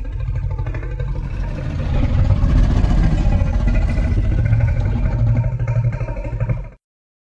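Monster creature sound effect: a long, low, rattling growl that cuts off suddenly near the end.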